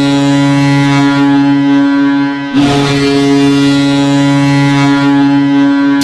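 Ice hockey arena goal horn, the same horn recording Boston uses, sounding two long, deep, steady blasts. The first breaks off about two and a half seconds in and the second follows at once.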